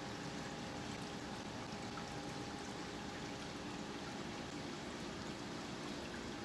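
Steady background hiss with a faint, even hum underneath: room tone, with nothing starting or stopping.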